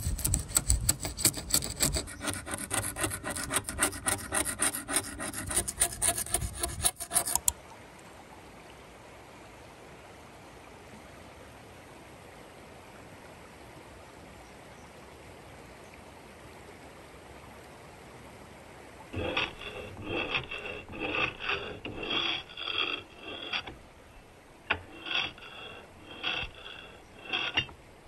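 A razor-blade paint scraper scraping flaking old finish off a wooden dresser top. It starts with a quick run of strokes that stops about seven seconds in. A faint steady hiss follows, and from about two-thirds of the way through there is a series of about ten separate scraping strokes.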